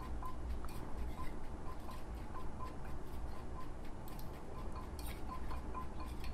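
Wooden pestle and spoon tapping and scraping lightly against a mortar while tossing shredded papaya salad: faint, irregular light clicks.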